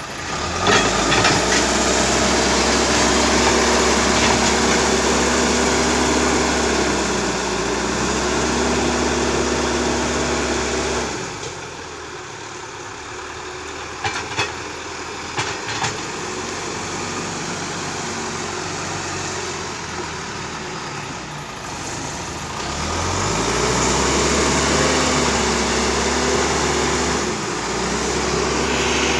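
John Deere 310E backhoe loader's diesel engine running under load while working the road. About a third of the way in it drops back to a quieter idle, with a few sharp knocks, then revs up again toward the end.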